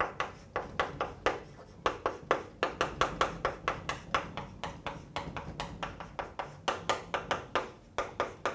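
Chalk writing on a blackboard: a quick, uneven run of sharp chalk taps and short scratches, about three or four a second.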